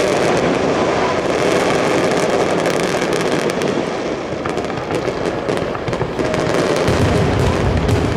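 Aerial fireworks going off: a dense run of rapid crackling pops sets in about halfway through, and a deeper rumble joins near the end.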